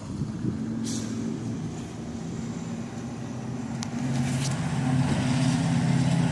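A motor vehicle's engine idling steadily, growing louder about four seconds in, with a couple of light clicks.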